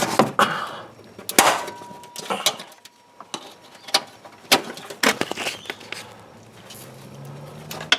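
Irregular clicks and knocks of hands and tools working at plastic clips and wiring in a vehicle's engine bay, the loudest knock about a second and a half in.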